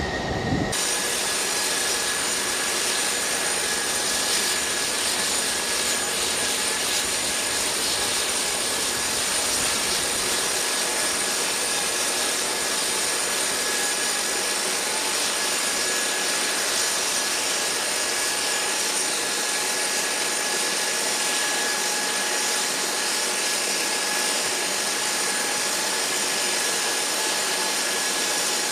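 Steady jet-turbine whine and rushing hiss from a parked C-5 Galaxy cargo aircraft, with several high, unchanging tones. A short low rumble cuts off under a second in.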